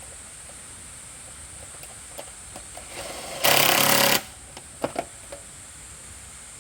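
A short burst of a mechanical tool, under a second long, about halfway through, with a few sharp clicks and knocks before and after it.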